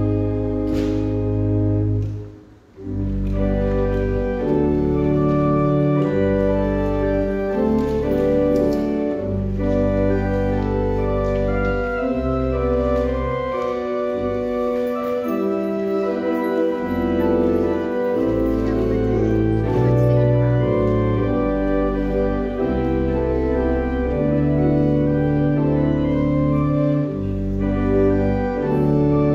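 Church organ playing a piece in slow, sustained chords with a deep bass line. It breaks off briefly about two and a half seconds in, then carries on.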